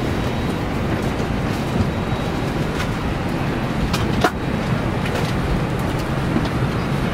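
Steady rumbling hum of an Airbus A321's cabin air and ventilation during boarding, with a few scattered clicks and knocks; one sharp click comes about four seconds in.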